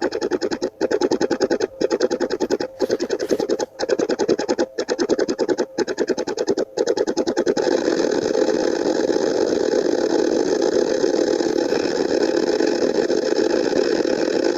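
An engine running with a fast, even pulse, cut into about one-second stretches by short breaks for the first seven seconds or so, then running on without breaks.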